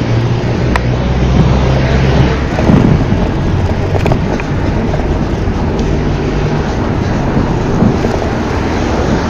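Road traffic close by: motor vehicle engines running with a steady low hum over continuous road noise.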